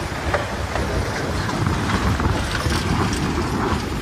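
Narrow-gauge passenger train running, heard from a coach window: a steady low rumble of wheels on the rails with quick irregular clicks and clatter.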